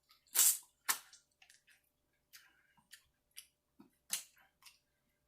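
Close-up eating sounds of a person biting and chewing quartered fruit: three sharper bites or mouth smacks, about half a second in, at one second and just after four seconds, with faint clicks in between.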